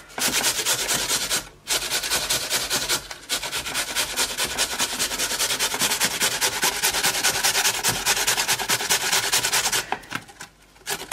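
Peeled raw potato being grated on a stainless-steel box grater: quick, repeated rasping strokes, broken by two brief pauses about one and a half and three seconds in and a longer pause near the end.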